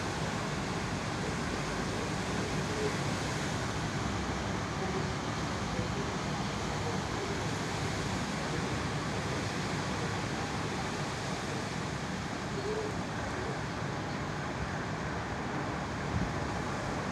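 Strong wind blowing, a steady rushing noise that holds at an even level throughout.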